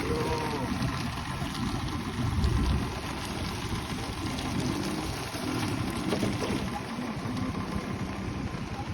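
Motorcycle engine running, its pitch rising and falling, with a brief louder swell about two and a half seconds in.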